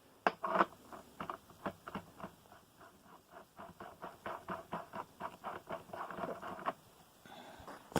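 A drill chuck being turned by hand, giving a quick run of small clicks, about four or five a second, for some six seconds.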